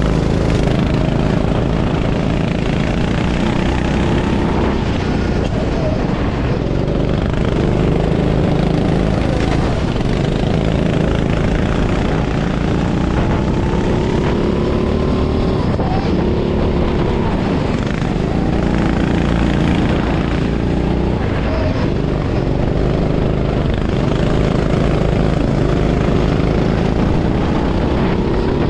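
Sodi kart's engine, recorded onboard, revving up and dropping back again and again as the kart laps the track, over a steady hiss of noise.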